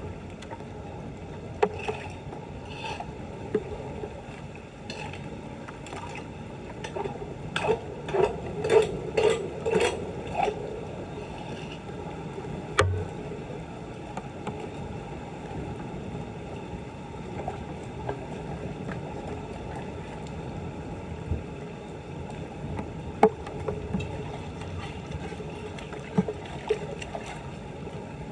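Floodwater sloshing and splashing around a clogged street drain, with a quick run of splashes about eight to ten seconds in and a couple of single sharp knocks later.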